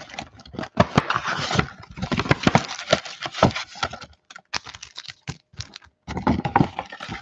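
A cardboard Donruss Optic football blaster box is opened by hand: the flaps are pulled up and the foil card packs are tipped out onto the table. It makes a quick, irregular run of crinkles, scrapes and taps, with a short pause about six seconds in.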